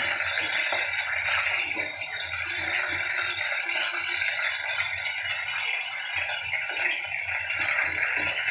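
Chicken pieces sizzling steadily in hot mustard oil in a steel kadhai, lightly shallow-fried before the potatoes go in.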